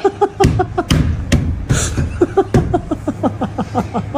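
A woman laughing loudly in a long, even run of short 'ha-ha-ha' bursts. A few sharp knocks sound in the first couple of seconds.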